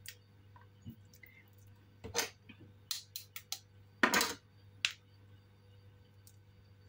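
Shell being peeled by fingers off a hard-boiled egg that peels badly, coming away in small pieces. Scattered small crackles and ticks, with a quick cluster about three seconds in and the loudest about four seconds in, over a faint steady hum.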